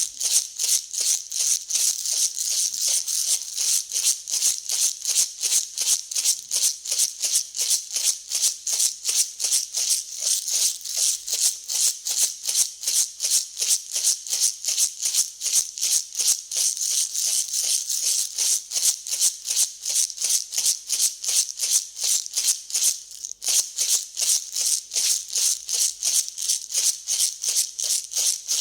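Dry grain being mixed, rattling and swishing in even strokes about three a second, with a brief break a few seconds before the end.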